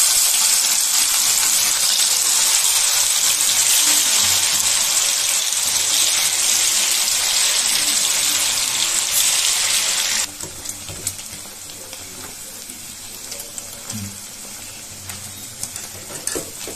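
Batter-coated paneer deep-frying in hot oil in a kadai: a loud, dense sizzle that cuts off suddenly about ten seconds in, then a quieter sizzle with scattered crackles and pops.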